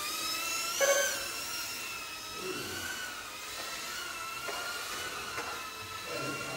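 Electric motors and propellers of small FPV racing quadcopters whining, the pitch rising and falling with throttle, with a louder rising surge about a second in.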